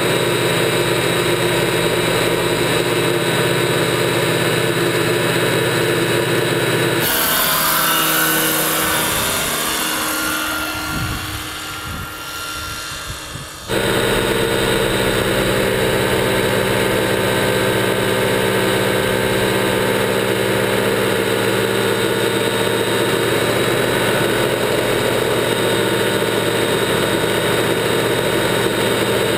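A large radio-controlled scale helicopter's mechanics and rotor running, heard from a camera inside its cabin as a steady mechanical drone with whining tones. About seven seconds in, the sound changes for several seconds, with gliding pitch and a falling level, then snaps back abruptly to the steady running sound.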